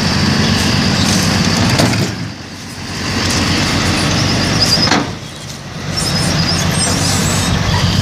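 Hand truck's wheels rolling over concrete under the load of a washing machine, a steady rough rumble that eases off twice, with a couple of knocks and a thin high squeak that comes and goes.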